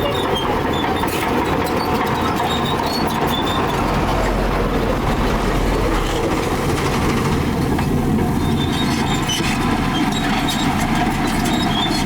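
Heavy diesel engine of earthmoving machinery running steadily, with a continuous metallic clatter and short high squeaks scattered through.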